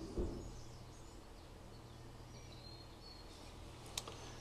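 Quiet room tone with a steady low hum, a soft bump just after the start and a short sharp click near the end, from a tablet being handled and lowered.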